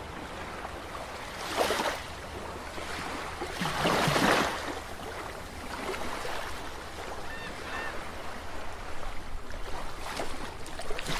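Water-and-surf sound effect for an underwater logo animation: a steady rushing wash with two louder swells, about a second and a half and four seconds in, and a few faint short chirps near the end.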